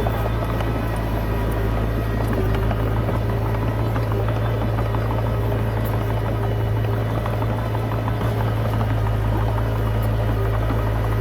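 Komatsu D20P bulldozer's diesel engine running steadily under load, a deep drone with a constant rattle of small clanks from the machine.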